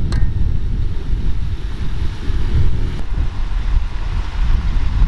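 Wind buffeting the microphone: a loud, uneven low rumble with a fainter hiss above it and one short click just after the start.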